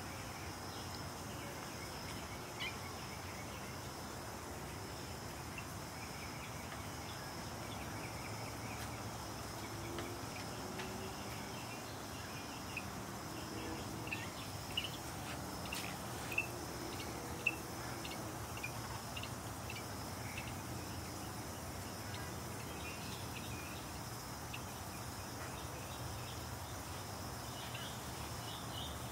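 Outdoor background with a steady high insect drone, scattered short chirps, and a few faint sharp clicks in the middle.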